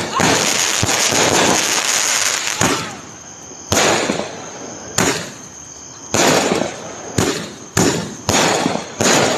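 Fireworks going off: a dense stretch of overlapping crackling bursts for the first couple of seconds, then a series of separate sharp bangs about a second apart, coming a little faster near the end.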